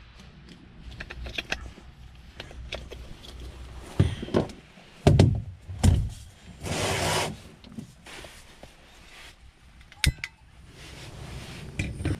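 Gear being handled and set down on a moulded plastic floor: scattered knocks and thumps, a rustle lasting about a second around the middle, and a single sharp click near the end.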